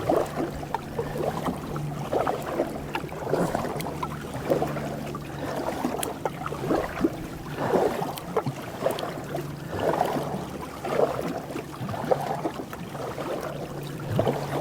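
Canoe paddle strokes in river water, a splashy swish about once a second.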